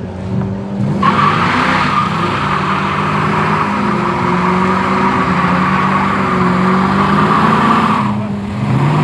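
Car doing a burnout: its tyres spin and squeal for about seven seconds, starting about a second in and cutting off near the end, over the engine revving.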